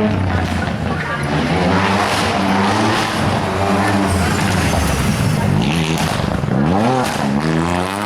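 Rally car engine revving hard, its pitch climbing and dropping repeatedly through gear changes. Near the end it dips low, then climbs steeply on hard acceleration.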